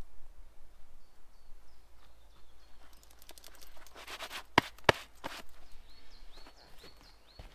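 A small bird chirping now and then, and a burst of rustling and clattering in the middle with two sharp knocks close together.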